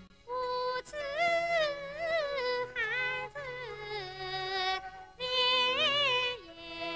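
A woman singing a Guangxi mountain song (shan'ge) in a high voice, in sliding, ornamented phrases with short breath pauses between them.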